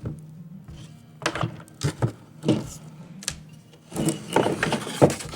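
A box being handled and set out: a few light knocks and taps, then denser scraping and rustling near the end, over quiet background music.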